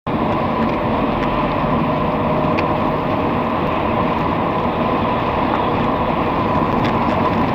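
Steady engine and road noise inside a moving vehicle, tyres running on a wet road.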